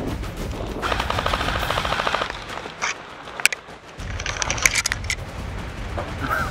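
Airsoft gun firing a rapid full-auto burst lasting about a second and a half, followed a second or so later by a few separate sharp shots.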